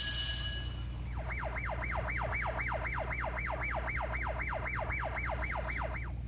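A siren warbling rapidly, its pitch sweeping up and down about four times a second, starting about a second in and stopping just before the end, over a steady low rumble.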